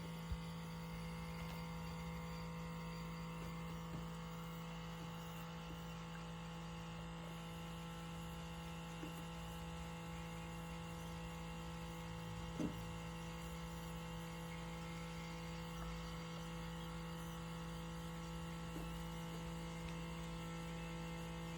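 Keurig K-Mini single-serve coffee maker humming steadily, with a few faint clicks and a soft knock about twelve and a half seconds in.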